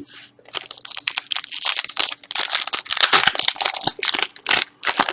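Plastic or foil trading-card pack wrapper crinkling and crackling as it is handled and torn open by hand, in quick irregular crackles.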